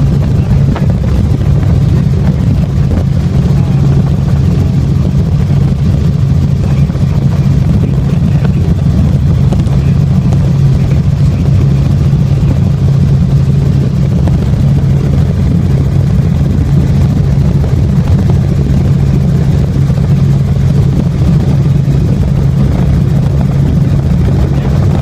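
Helicopter in flight, heard from inside the cabin: a loud, steady drone of engine and rotor with a strong low hum.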